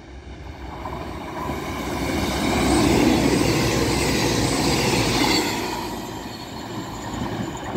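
CrossCountry Voyager diesel multiple unit passing through at speed. The rush of wheels and air builds, is loudest in the middle as the train goes by, then fades as it draws away.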